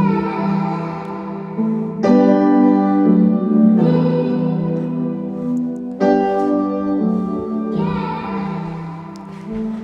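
Music played through an Amazon Echo Studio smart speaker: a keyboard melody with new phrases starting about every two seconds.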